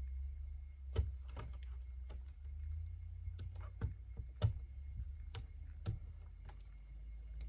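Wire strippers clicking and snipping at irregular intervals as the insulation is stripped off a light fixture's leads, over a steady low rumble.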